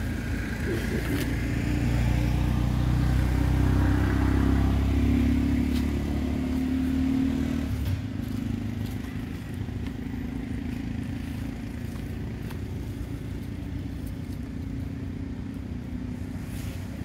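A motor engine's steady low drone that swells over the first few seconds, then fades about eight seconds in to a quieter steady background hum.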